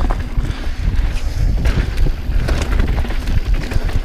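Wind buffeting the rider's microphone as a mountain bike runs fast down a dirt trail, with scattered clicks and knocks from the bike and its tyres over the rough ground.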